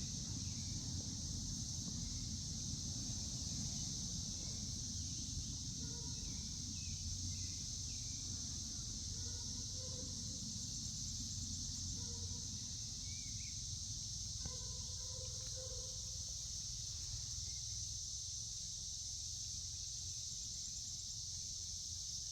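Steady outdoor insect chorus, a continuous high-pitched buzz without a break, over a low background rumble, with a few faint bird chirps in the middle.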